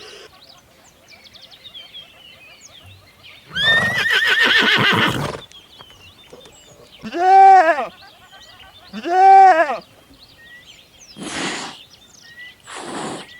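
A series of animal calls: a wavering call about four seconds in, then two loud, arched calls about two seconds apart, then two short breathy blasts near the end.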